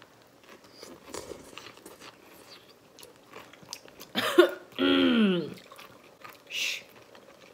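Instant hotpot noodles being slurped and chewed: soft mouth clicks throughout, a loud slurp a little after four seconds, then a short voiced murmur falling in pitch, and a brief hiss near the end.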